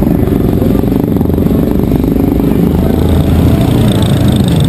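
Several motorcycle engines running close by as the bikes ride slowly past, a loud, steady low rumble, with engine pitch rising and falling near the end.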